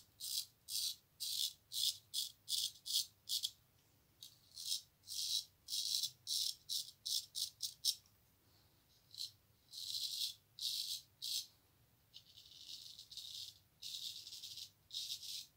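Freshly honed straight razor scraping stubble through shaving lather in quick, short strokes, about two or three a second, with a few longer, steadier strokes near the end. The blade is cutting evenly from heel to point without pulling.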